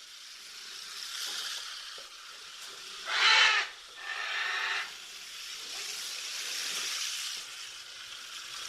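Porcupine hissing: a steady breathy hiss, with a louder burst about three seconds in and a shorter one just after.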